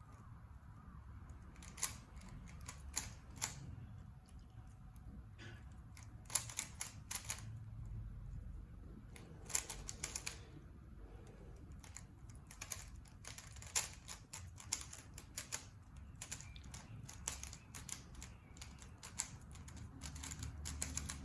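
3x3x3 Rubik's cube being turned fast during a speedsolve: rapid plastic clicks from the layers snapping round, in irregular runs with brief pauses.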